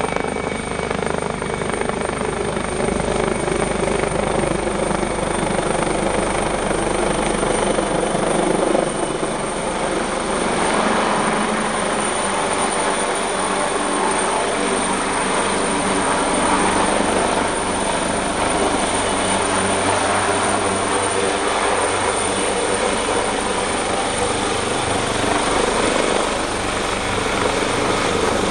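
Helicopter landing, its rotor and turbine engine running loud and steady.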